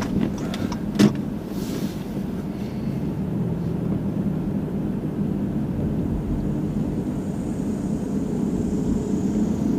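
Car driving on a road, heard from inside the cabin: a steady low engine and road hum, with a single sharp click about a second in.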